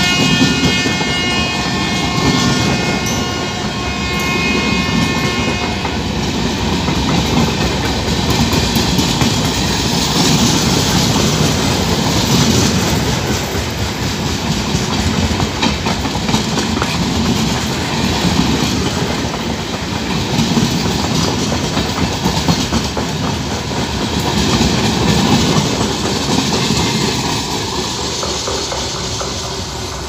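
Express train of LHB coaches running past at speed: a loud, continuous rumble with clickety-clack of wheels over the rail joints, swelling and easing as the coaches go by. For the first few seconds the WAP-4 electric locomotive's multi-tone horn still sounds, fading out about six seconds in.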